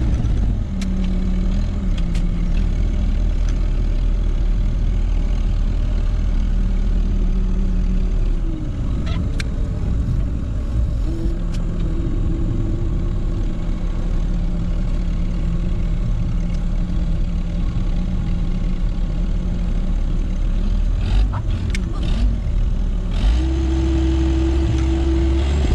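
Tractor engine running and working under load, heard from inside the cab, its pitch rising and falling several times, with a few short clicks and knocks.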